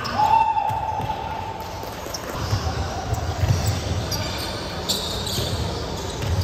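Basketball bouncing and players' feet thudding on an indoor hardwood court. A long steady tone sounds just after the start and holds for about a second and a half.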